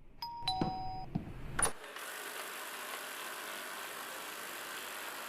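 A few short electronic beeps and clicks, then a steady whirring hiss from a eufy RoboVac 30C robot vacuum's suction fan running.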